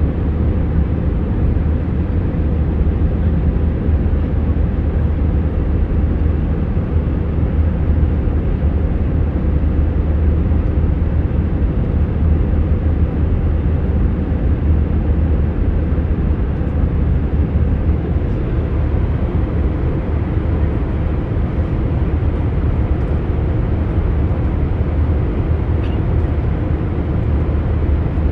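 Commercial airliner cabin at cruising altitude: a steady rumble of jet engine and airflow noise, heaviest in the low end with a constant low hum.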